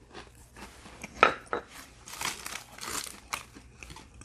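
Plastic cracker sleeve crinkling as it is handled, in irregular crackles, with one sharp crackle about a second in.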